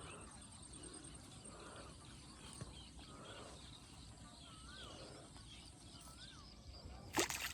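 Faint birdsong, with a few short wavy whistles and light chirps, over quiet background noise. A sudden loud swish or splash comes near the end.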